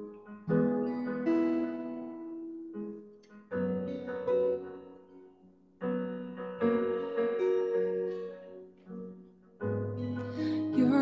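Slow chords played on a keyboard with a piano sound, struck one every second or two and left to fade, with an acoustic guitar played softly along. The music swells near the end.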